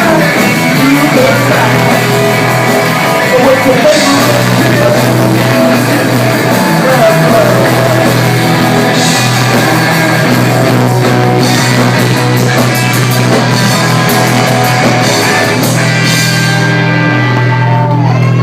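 Garage punk band playing live and loud: distorted electric guitars, bass and drums with a sung vocal line. Near the end the cymbals drop out while the guitars and bass keep sounding.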